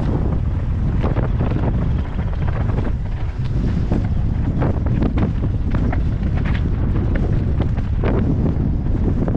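Wind buffeting the action camera's microphone during a mountain-bike descent on a dry dirt trail. Under it are the tyres on dirt and frequent short clicks and rattles from the bike going over bumps.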